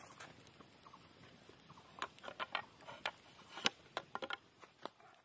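Small wood fire crackling, with irregular faint clicks and pops, one louder pop about three and a half seconds in.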